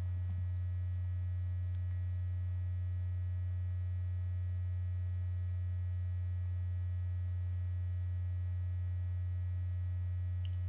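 Steady low electrical hum, mains hum in the recording, unchanging throughout, with only a faint tick or two.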